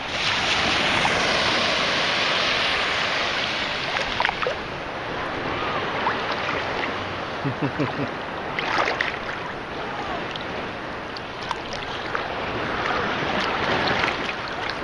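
Shallow sea water sloshing and lapping around people wading, loudest in the first few seconds while the camera is held close to the surface, with wind on the microphone.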